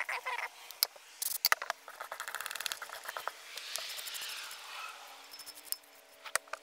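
Brake caliper parts being scrubbed with a brush and handled, with quick scratchy strokes and sharp clicks and knocks. About halfway through comes a hiss of aerosol brake cleaner spraying for a second or so.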